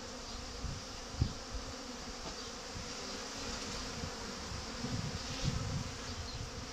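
Honeybees buzzing in flight around the entrances of a row of hives: a steady hum of many bees during a busy foraging flight, with foragers coming in loaded with pollen. A few low thumps break through, the loudest about a second in.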